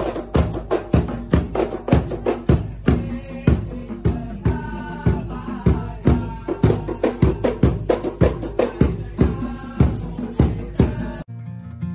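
Drum music with a fast, steady beat, played for a silat dance. About eleven seconds in it cuts off abruptly and an acoustic guitar song begins.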